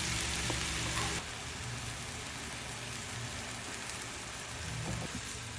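Noodles stir-frying in a hot pan, a steady sizzling hiss that drops in level a little over a second in, with a low steady hum underneath.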